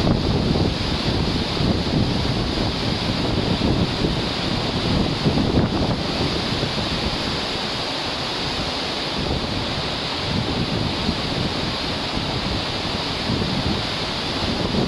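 Strong wind buffeting the microphone over the rush of a rough, storm-driven sea churning in a ship's wake. It is a steady noise with gusts that ease for a few seconds around the middle.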